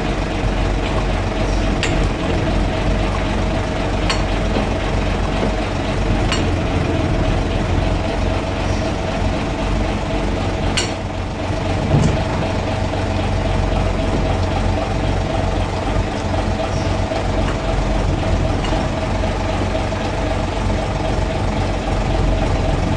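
Guy Arab LUF single-decker's underfloor diesel engine running steadily, heard from inside the driver's cab, with a steady whine above the low engine note and a few light clicks.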